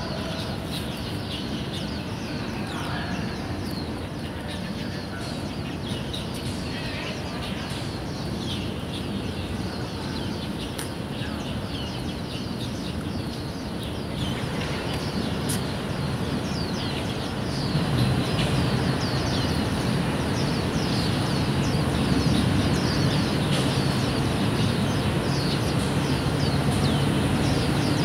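Birds chirping, many short quick calls that grow denser about halfway through. Beneath them is a low steady traffic hum, which gets louder in the second half.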